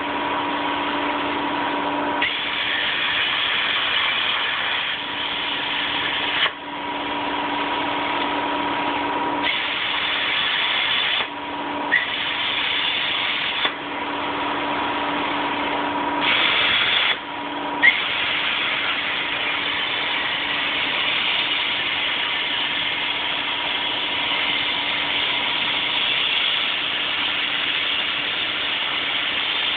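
CNC plasma torch cutting steel plate, a loud steady hiss. In the first 18 seconds it stops and restarts several times between cuts, with a steady hum from the machine in the gaps and a brief click at each restart. After that it cuts continuously.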